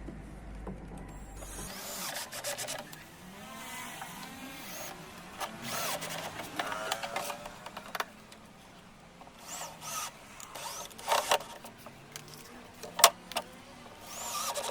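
Small electric motor whirring in short runs, its pitch rising and falling, with a few sharp knocks near the end.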